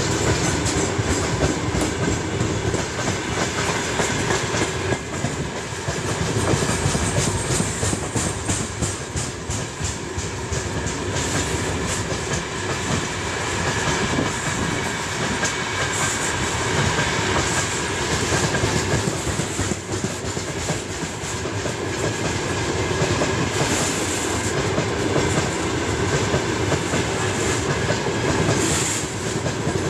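Freight train of open gondola wagons rolling past close by, its wheels clattering over the rail joints in a steady, dense run of clicks.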